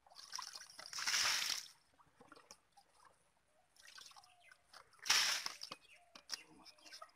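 Muddy water sloshing and splashing in a black pot as it is worked down into a water-filled mud hole. There are two louder splashes, one just after the start and one about five seconds in, with smaller sloshes between them.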